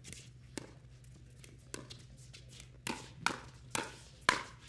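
Pickleball paddles hitting the plastic ball back and forth in a rally: sharp pops, a few faint ones, then four loud ones about half a second apart near the end.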